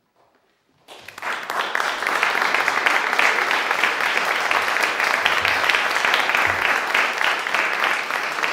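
Audience applauding, breaking out suddenly about a second in after near silence and then going on steadily as a dense patter of many hands clapping.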